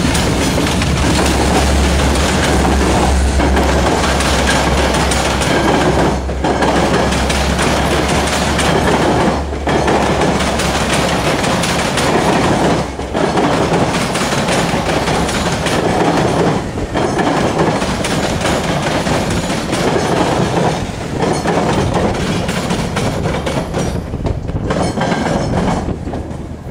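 Metra MP36PH-3S diesel locomotive passing close with its engine humming low. A string of stainless-steel bilevel passenger cars follows, rolling by with clickety-clack over the rail joints. The rolling noise dips briefly every three to four seconds as the cars go past, then fades as the last car clears.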